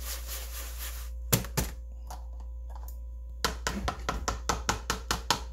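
Fish chunks shaken in dry breading mix inside a plastic tub, a rough rattling hiss that stops about a second in. Then a loud thunk on the counter, followed by a run of about ten quick taps and knocks.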